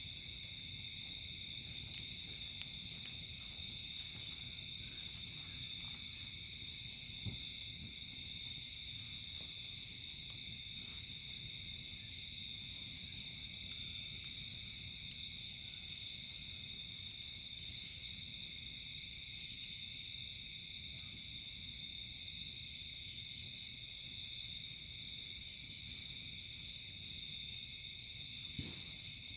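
Insect chorus, a steady high-pitched trilling, with a still higher buzz that swells every five or six seconds. A few faint pops from a campfire come through now and then.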